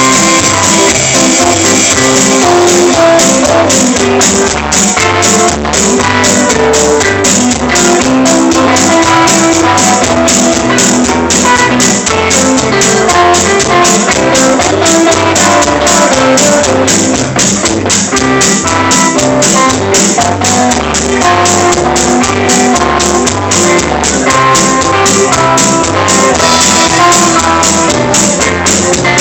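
Live band playing: electric guitar and electric bass over a drum kit keeping a steady beat.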